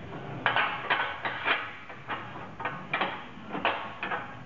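Steel restraining bar being fitted into a hot press frame: about ten sharp metal knocks and clanks as it is set in place.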